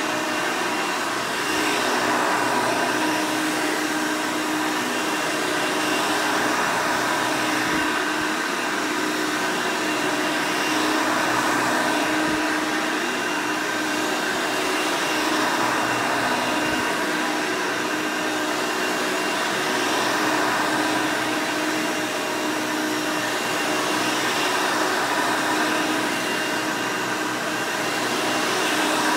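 1991 Hoover Elite 200 (U4467) upright vacuum running steadily: its 5-amp direct-air motor gives a continuous whine with several held tones.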